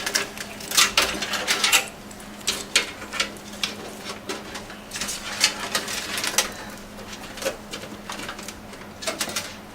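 Irregular clicks and knocks of hard parts being handled against a metal PC case, denser in the first two seconds and sparser afterwards.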